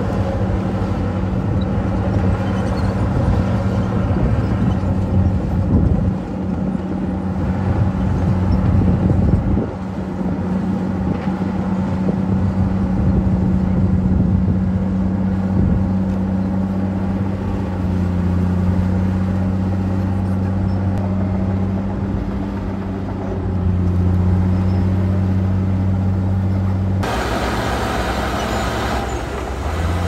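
Crawler bulldozer diesel engines running steadily under load while pushing dirt, the engine note shifting up and down a few times. The sound changes abruptly near the end.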